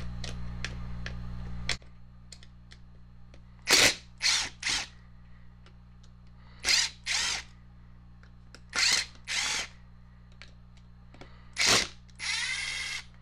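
Ridgid cordless driver running in about nine short trigger bursts, mostly in pairs with the last one longer, backing screws out of a Craftsman electric chainsaw's plastic housing to free the motor.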